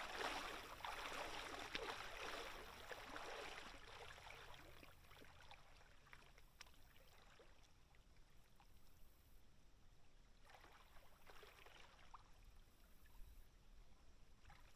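Near silence with faint flowing water from a shallow creek: a soft hiss that fades over the first few seconds and comes back briefly about ten seconds in.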